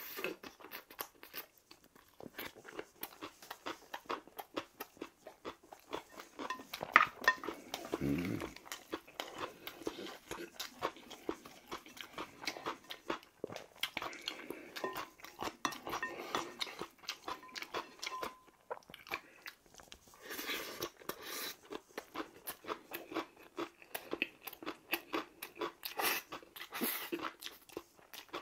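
Close-miked eating sounds: a man chewing mouthfuls of bibimbap with raw kohlrabi salad and slurping spicy ramen noodles, with many wet mouth clicks and smacks. A brief low hum falls in pitch about eight seconds in.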